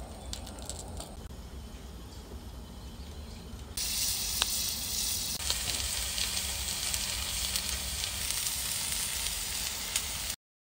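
NY strip steak searing on a Blackstone griddle's steel flat top at about 550 °F, held down by a cast-iron steak press: a loud, steady sizzle that starts suddenly about four seconds in and cuts off near the end. Before it, a quieter low rumble with a few light clicks.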